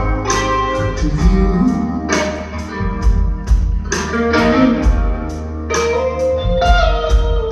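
Live blues band playing: electric guitar holding sustained notes over bass guitar and a drum kit keeping a steady beat with cymbal hits.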